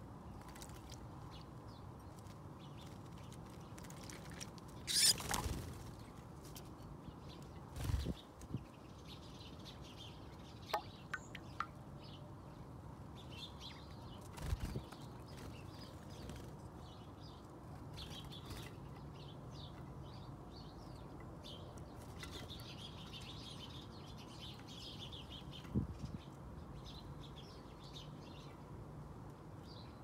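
Small garden birds, great tits and blue tits, fluttering and splashing at a shallow bird bath, with the loudest flurry of wingbeats about five seconds in as they leave. A few soft knocks follow, with faint chirping from small birds around.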